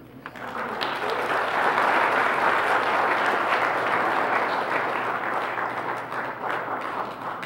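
A congregation applauding. The clapping builds over the first two seconds, then slowly fades away.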